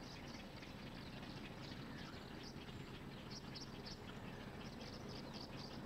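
Nesting colony of large wading birds calling from their treetop nests: a faint, steady, dense chatter of many short high calls overlapping, several a second.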